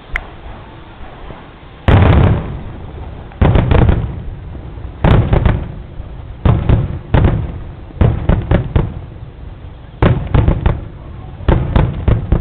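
Aerial fireworks shells bursting: loud booms, single or in quick clusters of two to four, coming every second or two, each trailing off over about a second.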